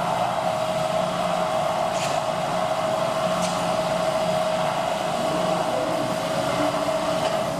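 Steady mechanical whirring hum with one constant mid-pitched tone, and a couple of faint ticks about two and three and a half seconds in.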